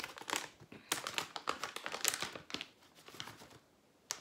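Plastic snack pouch of tomato jerky crinkling as it is handled and pulled open. There are dense, irregular crackles for about three seconds, then it goes quieter, with one click near the end.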